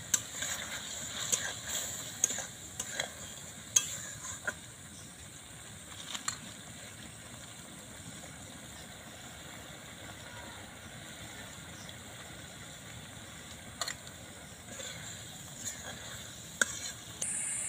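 Spatula stirring and scraping thick papaya chutney in a metal wok, with sharp taps against the pan clustered in the first few seconds and a few more near the end, over a steady low hiss.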